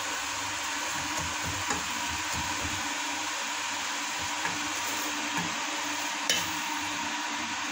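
Chopped spinach and onions sizzling steadily in an aluminium pot while a wooden spoon stirs and scrapes through them, with a few sharp knocks of the spoon against the pot.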